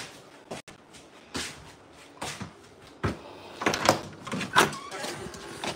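A series of short knocks and rustles of household handling noise, close to the phone's microphone, with a busier run of knocks around four seconds in.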